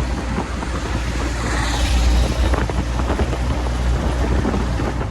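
Vehicle running, with a steady low rumble and wind buffeting the microphone.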